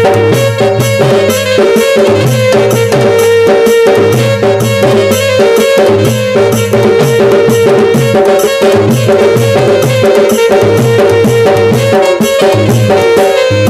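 Instrumental passage of a Sambalpuri devotional bhajan: hand drums play a dense, steady beat under a held melody line, with no singing.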